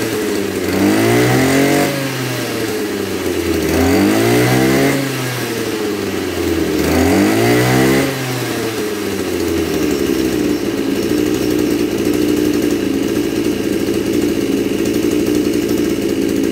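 Maruyama KC230RS-1 brush cutter's 23cc two-stroke engine revved three times on the throttle trigger, each rev rising and falling over about a second and a half, then idling steadily from about eight seconds in.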